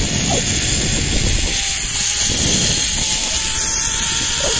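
Zip-line trolley running along the steel cable with a steady whirring hiss, mixed with wind buffeting the microphone as the rider slides down the line.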